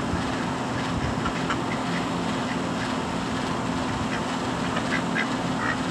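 Domestic ducks quacking in short, scattered calls, more of them in the second half, over a steady background hum.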